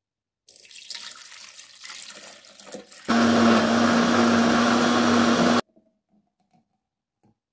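Milk pouring into a plastic blender jar, then a countertop blender running with a steady motor hum for about two and a half seconds as it blends strawberries and milk into a milkshake, cutting off suddenly.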